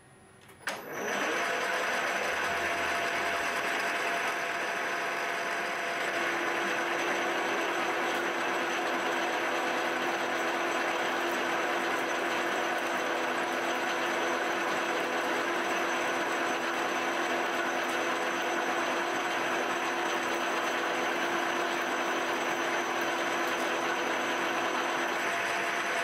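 CNC mill spindle drilling an aluminium block with a twist drill, under the steady hiss of a compressed-air blow gun clearing chips from the hole. Both start suddenly about a second in, and a lower steady tone joins around six seconds in as the drill cuts deeper.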